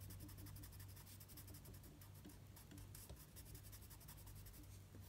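Colored pencil scratching faintly on drawing paper in quick, short back-and-forth strokes as the hair is shaded in, over a steady low hum.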